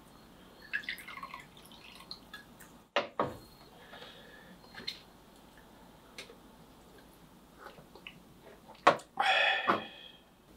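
Soju poured from a glass bottle into a small shot glass, a short trickling glug, then a sharp clink as the bottle is set down on the table about three seconds in. Near the end a second sharp knock as the emptied shot glass is put down, followed by a brief voiced exhale.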